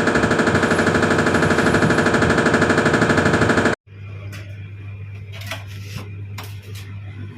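Washing machine with a damaged drum rattling hard and fast at an even rhythm: the rough noise of a broken drum. It cuts off suddenly to a low steady hum with a few sharp knocks.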